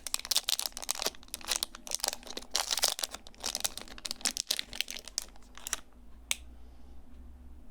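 Packaging crinkling and rustling as it is handled and opened: a dense run of crackles and rustles that stops about six seconds in, followed by a single sharp click.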